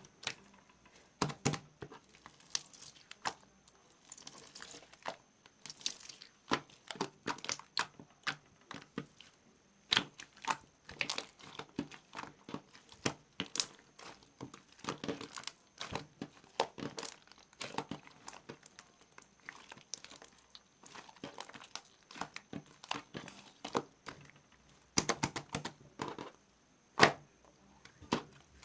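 Slime being squeezed, stretched and poked by hand, making irregular sticky pops, clicks and crackles, with one louder pop near the end.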